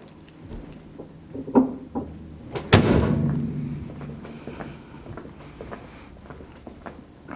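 A car door slammed shut about three seconds in, a heavy thud whose low ring dies away over a second or so. A lighter knock comes just before it, with small clicks and handling noises around.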